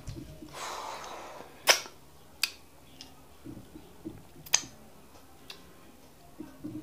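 Close-miked hand handling at an eating table: a soft rustle, then three sharp clicks and several fainter ticks and soft squishy touches as fingers pinch pieces off a mound of fufu.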